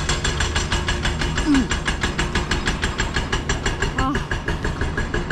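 Bulldozer's diesel engine running with a steady, rapid knocking beat, about six knocks a second, over a low hum.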